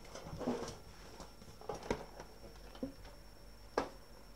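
Faint handling noises of a small case being held and moved, with a few scattered light clicks, the sharpest one near the end.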